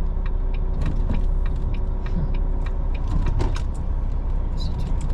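Lorry's diesel engine running steadily at low speed, with a run of short, sharp ticks and clicks, about three or four a second, over it.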